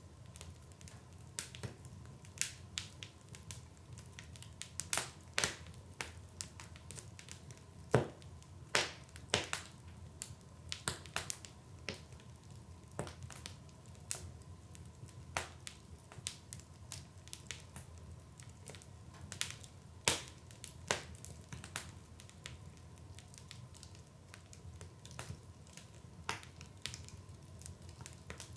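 Wood fire burning in a fireplace, crackling with irregular sharp pops, roughly one to three a second, over a low steady rush of flame.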